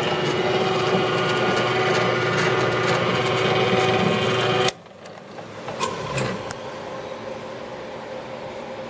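Jet 15-inch floor drill press running, with a steady motor and belt hum made up of several even tones. About halfway through it cuts off suddenly and leaves a much quieter steady background with a few faint clicks.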